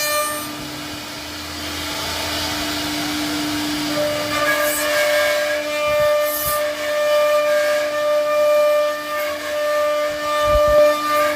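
CNC router spindle running with a steady whine while its bit cuts wood, with a hissing cutting noise that swells and eases as it moves.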